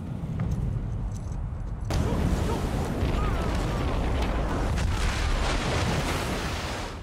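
Deep low rumble of a giant tsunami wave in film sound effects. About two seconds in, a sudden loud rush of crashing water fills the sound, then cuts off near the end.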